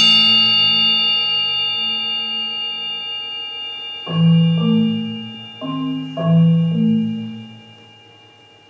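Marimba playing slow, soft rolled chords low in its range, with new chords entering several times between about four and seven seconds in and then fading. Over them a high, bell-like ringing note slowly dies away.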